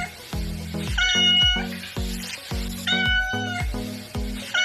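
Domestic cat meowing, two drawn-out meows about two seconds apart and a third starting at the very end, over background music with a steady beat.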